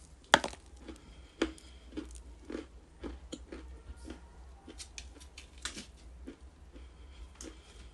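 Dry pieces of edible clay being crunched close to the microphone: an irregular run of sharp, crisp crunches and crackles, several a second, the loudest just after the start.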